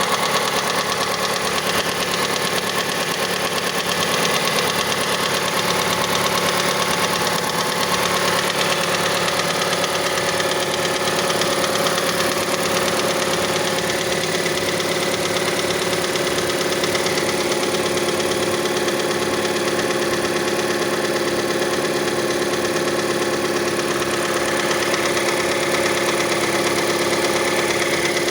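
Mazda CX-5 engine idling steadily with a rapid knocking. The knock is present until the engine warms to about 70 degrees, and the owner suspects the variable valve timing mechanism.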